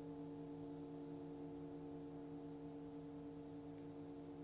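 The faint lingering ring of a metal singing bowl, several steady tones of different pitch sounding together and dying away very slowly.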